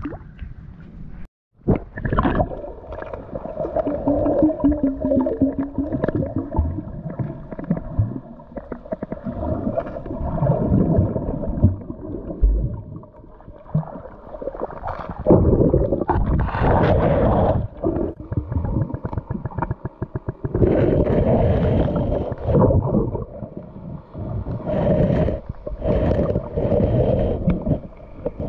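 Muffled water sloshing and gurgling, heard through an action camera held underwater, in uneven surges with a steady hum underneath. The sound drops out briefly about a second in.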